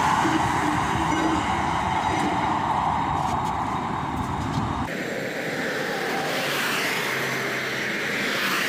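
Pneumatic tool running at a truck's rear wheel hub, cutting off suddenly about five seconds in, followed by steady passing highway traffic.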